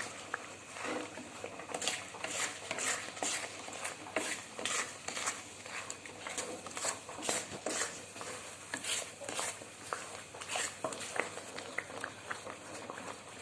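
Metal spoon scraping and clinking against a kadai and serving bowl while thick wheat halwa is stirred and scooped: a steady run of irregular clicks and scrapes.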